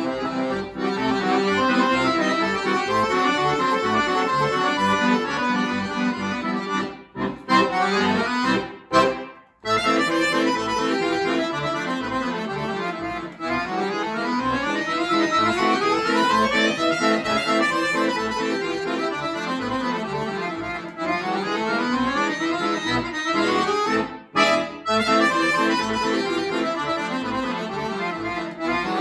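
Chromatic button accordion played solo: fast runs of notes rising and falling over lower held notes, broken by a few brief pauses.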